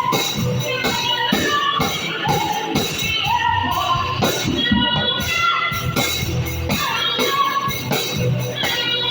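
Music with singing over a steady percussive beat.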